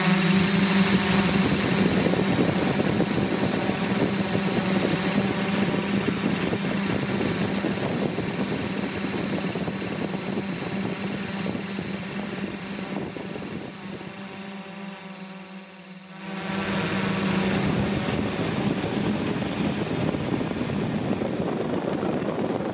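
Multirotor drone's motors and propellers running: a steady hum with a thin high whine. It fades slowly, drops away briefly about fifteen seconds in, then comes back abruptly.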